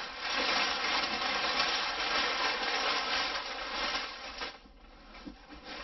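Crumpled brown kraft packing paper rustling and crackling as it is pulled out of a cardboard box. The rustling dies down about four and a half seconds in, leaving a few short rustles.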